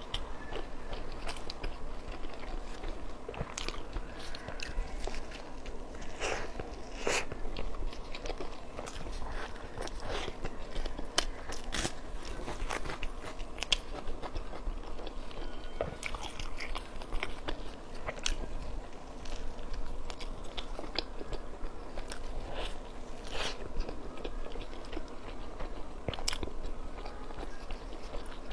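Close-up eating sounds: a person biting into and chewing a big steamed bun (baozi), with many irregular small clicks and crackles.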